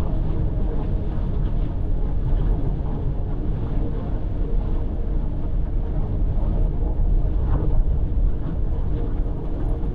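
Car driving at expressway speed: steady road and engine noise with a deep rumble.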